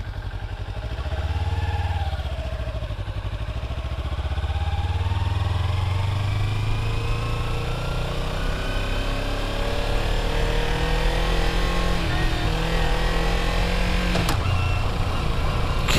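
Sport motorcycle's engine pulling away slowly from a junction, its pitch rising gradually over about ten seconds as it accelerates, then easing off near the end.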